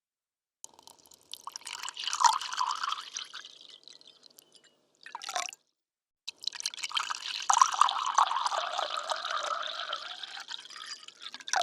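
Water poured into a glass in separate pours: one of about four seconds, a brief splash about five seconds in, then a longer pour of about five seconds that cuts off suddenly.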